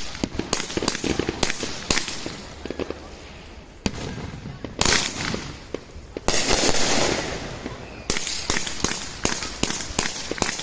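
Phantom Fireworks Witchcraft, a 32-shot 500-gram consumer firework cake, firing a rapid series of sharp shots and bursts. A longer, denser stretch of crackling noise comes past the middle, then quick shots again near the end.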